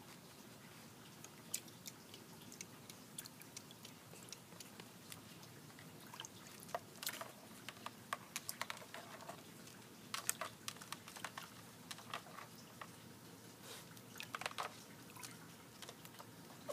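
Raccoon handling and crunching ice cubes in a shallow bath of water: irregular small clicks, crunches and drips, coming in clusters that are busiest in the middle and toward the end.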